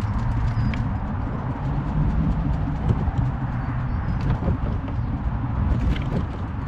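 Canoe on a small wheeled trolley being towed over an asphalt path: a steady rolling rumble from the trolley wheels, with scattered knocks and rattles as the hull and cart jolt. A few faint bird chirps sound over it.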